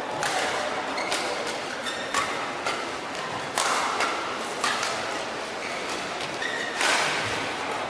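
Badminton rackets striking the shuttlecock in a fast doubles rally, about seven sharp hits at uneven spacing, a few with short shoe squeaks on the court floor between them.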